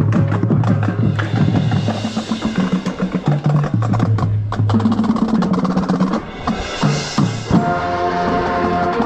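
Marching band playing its show, heard close to the drum set: busy drum kit and percussion strikes over held low bass notes. A sharp accent about seven and a half seconds in leads into sustained band chords.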